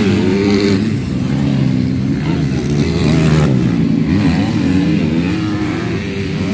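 Several motocross bikes' engines running at once on the track, their pitches rising and falling as riders work the throttle.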